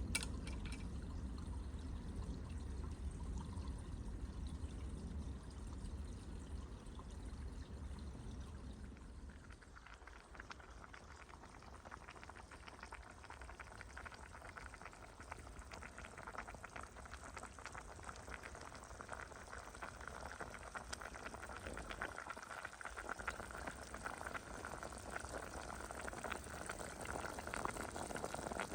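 Liquid pouring into a cooking pot for about the first nine seconds, then a pot of beef rib soup bubbling as it heats, the bubbling growing busier toward the end as it nears a boil.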